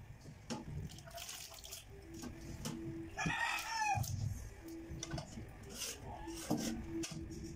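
Wet squelching and clicking as hands squeeze grated coconut with water in a metal bowl, pressing out coconut milk. About three seconds in, a rooster crows once, loudly, for under a second.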